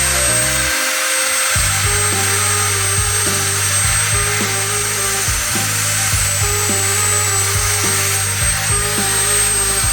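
Background music with an evenly repeating beat over a handheld electric drill running at high, constant speed, with a steady high whine and hiss, drilling into an aluminium pulley.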